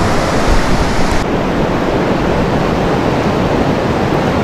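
Steady rush of a river's whitewater rapids flowing over rocks.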